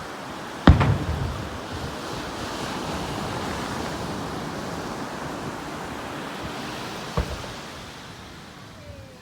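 Two aerial firework shells bursting: a loud boom about a second in with a rumbling tail, and a smaller boom near the end, over a steady rushing noise.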